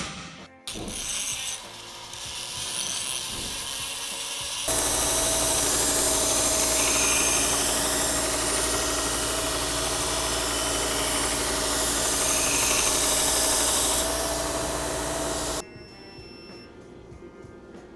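A power grinder grinding steel: a steady abrasive rasp over the hum of its motor. It runs at a moderate level for the first few seconds, then louder for about eleven seconds, and cuts off abruptly.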